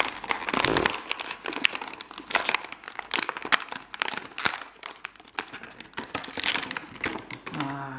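Thin clear plastic packaging crinkling and crackling in the hands as a small toy figure is worked out of it, in dense irregular crackles.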